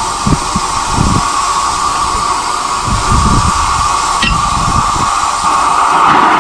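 Steady steam hiss from the standing double Fairlie locomotive Merddin Emrys, growing louder near the end, with a single metallic clink about four seconds in and irregular low rumbles underneath.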